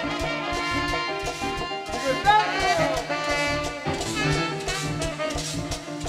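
Live band music with brass horns over a steady beat; a horn line slides downward in pitch a little after two seconds in.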